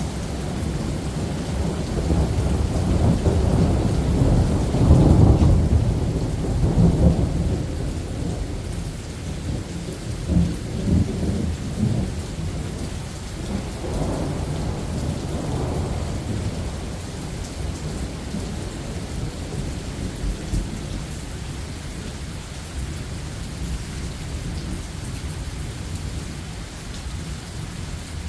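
Thunder rumbling during a rainstorm: a long low rumble that swells and peaks about five to seven seconds in, with weaker rolls around ten and fifteen seconds, over the steady hiss of rain falling on the forest.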